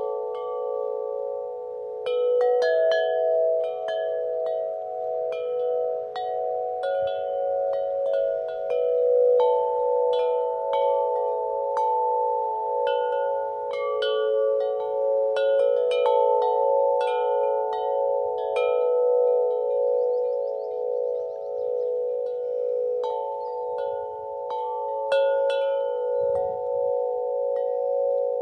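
Wind chimes ringing, struck at irregular moments by the wind. The many strikes overlap, and their long ringing tones blend into a continuous chord.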